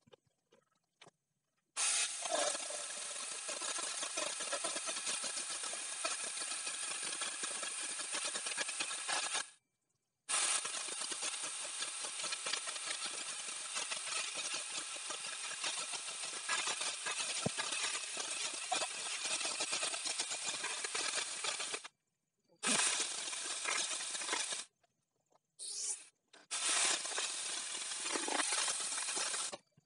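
Electric angle grinder fitted with a chainsaw bar and chain, running at speed as the chain cuts into a tree log, with a steady hissing buzz. It starts about two seconds in and cuts off abruptly a few times, the longest break near ten seconds and another near twenty-two.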